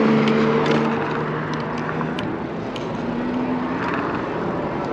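Street traffic and wind noise on the microphone of a moving e-bike, with the steady hum of a nearby vehicle's engine through the first two seconds.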